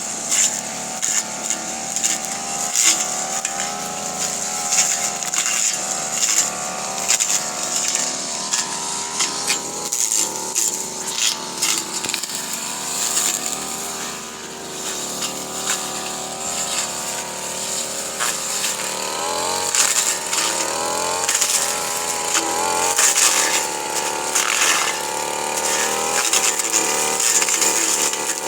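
Brush cutter engine running fast, its pitch dipping and rising as the blade cuts through napier grass stalks, with frequent short snaps and clicks of stalks being cut.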